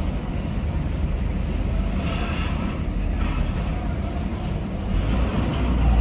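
Heavy vehicle engines rumbling low and steady, growing louder about five and a half seconds in as an engine is revved.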